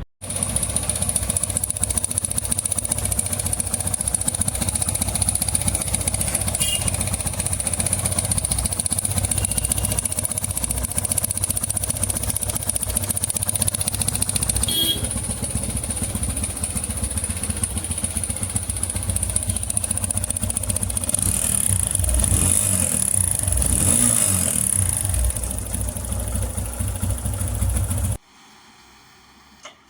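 TVS Apache RTR 160 2V BS6 single-cylinder engine running steadily, making the engine noise that is put down to the timing chain. The sound cuts off suddenly near the end.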